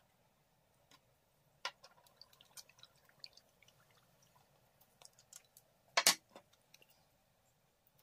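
Scattered light clicks and taps of small objects handled on a wooden tabletop: a plastic syringe set down, then an ink bottle opened and its metal cap put down, with the loudest double click about six seconds in.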